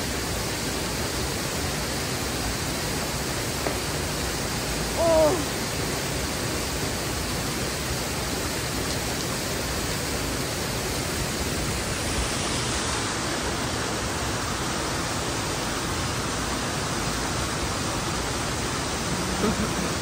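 Steady rushing of a waterfall, with a brief voice about five seconds in.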